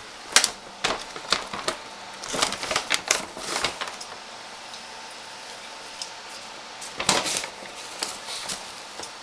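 Kitchen handling noise: sharp clicks, knocks and scrapes as pancake mix is scooped into a plastic measuring cup. The clicks come in a quick run over the first four seconds and again around seven seconds.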